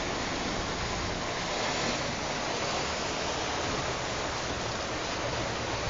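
Water rushing steadily along the hull of a sailing yacht under way, an even hiss of wake and broken water.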